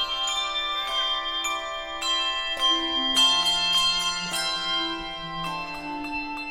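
Handbell choir playing a Christmas medley: chords of struck handbells ringing and overlapping, changing every half second to a second, with a lower bell tone coming in about three seconds in.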